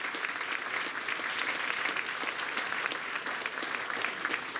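Audience applauding, many hands clapping steadily after a concert band piece ends.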